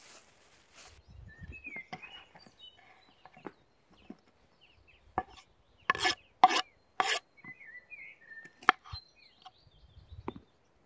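Plastic bag rustling, then sharp knocks of vegetables and a knife being handled on a wooden cutting board, with three loud knocks close together about six seconds in. Small birds chirp now and then.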